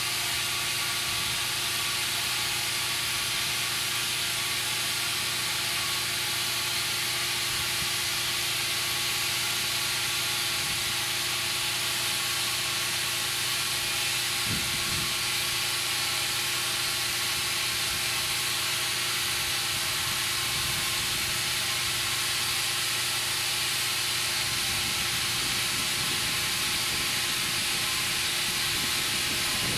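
Compressed air hissing steadily into a Firestone 20.8R38 radial tractor tire as it is inflated, over a steady low hum.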